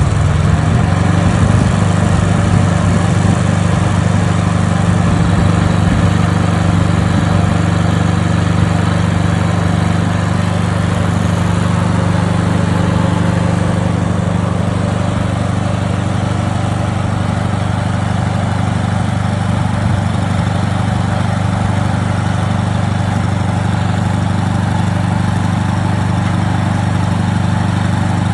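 Diesel engine of a Multitel SMX250 tracked spider lift running at a steady speed, driving the hydraulics as the boom is raised.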